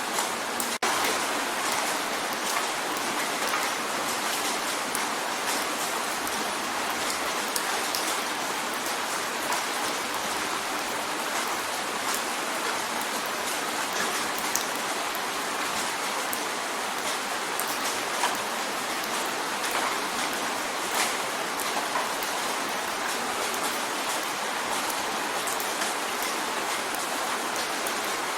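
Steady rain drumming on a window pane, a constant hiss with many small drop taps scattered through it. There is a momentary break in the sound a little under a second in.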